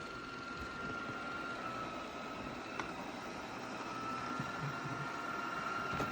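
Lubluelu L20 robot vacuum running on a cleaning run: a steady whirr of its suction fan with a thin, steady high whine over it.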